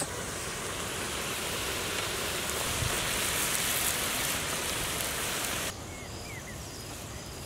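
Butter and vegetables sizzling steadily in a hot wok as cooked rice is scooped onto them. About six seconds in the sizzle cuts off abruptly, leaving quieter outdoor ambience with faint insect chirping.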